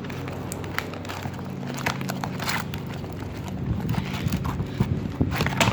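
Slime with foam beads being stirred in a bucket right after the activator goes in: irregular crackling clicks from the mixing, over a low steady hum.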